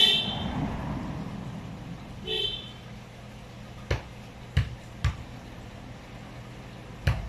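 Two short, high horn toots from a passing vehicle on the street, about two and a half seconds apart, the first over the rumble of the vehicle going by. They are followed by four sharp metallic clicks from hand work on the folding bike's rear wheel and chain.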